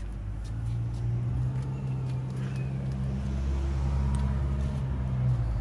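Steady low hum of an idling vehicle engine, swelling slightly in the middle and easing off near the end, with a few faint clicks.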